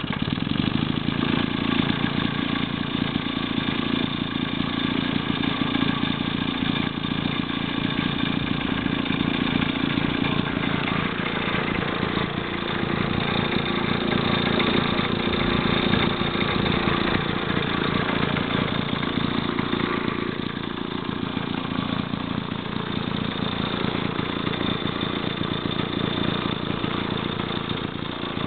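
A 1941 Maytag Model 72 twin-cylinder two-stroke engine fires right at the start and runs steadily. It eases slightly quieter in the last third.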